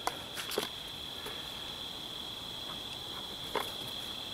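Insects droning steadily at one high pitch in the background, with a few soft clicks and taps from handling at the bench.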